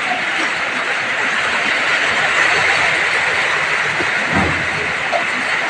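Homemade areca nut peeling machine running with a steady mechanical rattle and hiss, with a few low knocks about four and a half seconds in.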